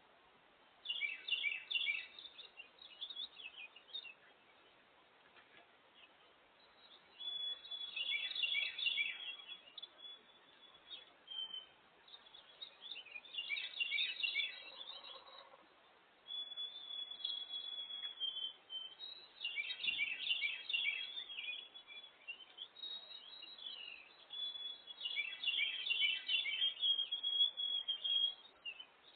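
Small songbirds singing outdoors: a short, busy song phrase repeated about every six seconds, with some longer, steady whistled notes between phrases.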